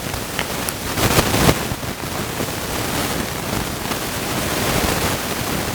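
Steady, fairly loud hiss-like rushing noise: the recording's sound fault. About a second in there is a short, louder rustling burst.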